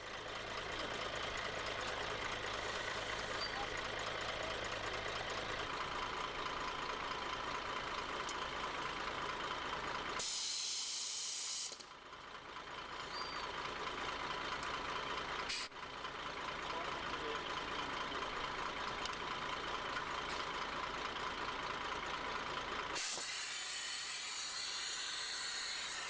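Compressed air hissing out in two bursts, each a second or two long, over a steady mechanical background noise.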